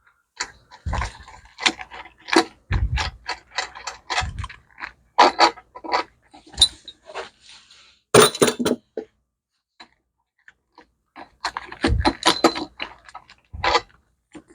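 Metal parts and hand tools being handled on a workbench: irregular clinks, rattles and knocks, with a sharp clatter about eight seconds in, then a short quiet spell before more clinking and thumps.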